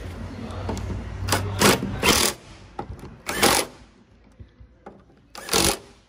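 A power tool driving in the sliding-door latch bolts: it runs steadily for about the first two seconds, then in five short, loud bursts as the bolts are tightened.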